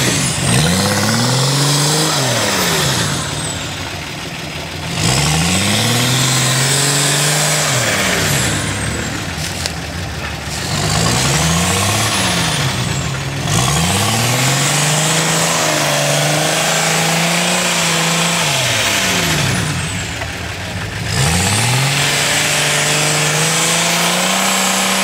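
UAZ off-roader's BMW 2.4-litre straight-six turbo-diesel revving up and easing off several times, its pitch climbing and dropping with each push of the throttle as it crawls through undergrowth.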